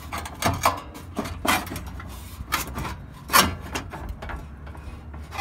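Volkswagen Beetle rear bumper being pulled off backwards, its mounting brackets scraping and clunking out of the body in a run of irregular knocks, the loudest about three and a half seconds in.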